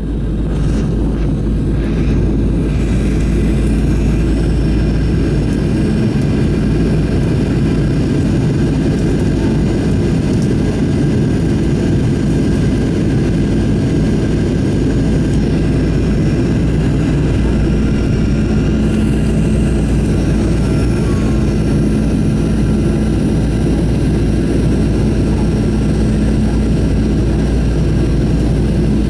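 Steady cabin noise of a Boeing 737-900ER descending towards landing: the even rumble of its CFM56-7B turbofan engines and the airflow, with faint steady whining tones above it.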